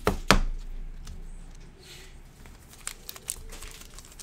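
Trading cards and a foil card-pack wrapper being handled: two sharp card snaps right at the start, the loudest sounds, then faint crinkling of the foil pack and a few light clicks about three seconds in.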